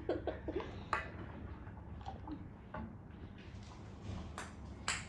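Scattered light clicks and taps over a low, steady room hum, a few sharp ones spaced out and the loudest near the end.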